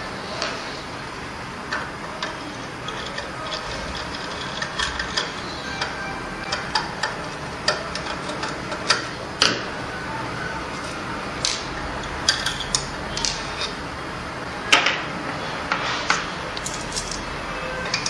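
Metal crimping dies and a screwdriver being handled while the die set of an AM305 terminal crimping machine is changed: scattered, irregular sharp clicks and clinks, a few louder ones about 9 and 15 seconds in.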